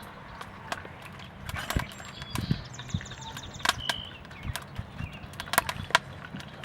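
Irregular sharp clicks and light knocks, with a brief high chirp near the middle.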